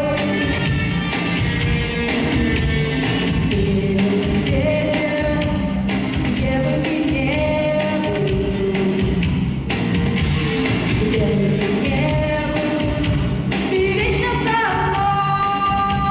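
A woman singing a folk-rock song over a band backing with a steady drum beat, holding long notes.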